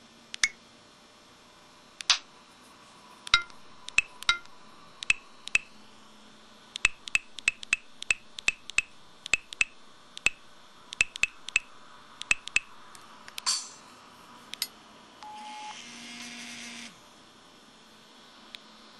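Samsung SCH-E110 mobile phone keypad tones: about two dozen short, high beeps with a click as keys are pressed, irregularly spaced and sometimes in quick runs. About fifteen seconds in, a brief two-note tone over a hiss sounds for about a second and a half.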